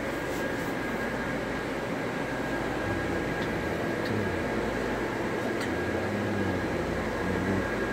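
Steady whir and hiss of electric blower fans keeping inflatable Halloween decorations inflated, with a thin steady whine and low hum and a few faint ticks.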